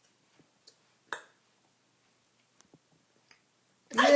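Near silence broken by a single light click about a second in and a few fainter ticks. Laughter breaks out right at the end.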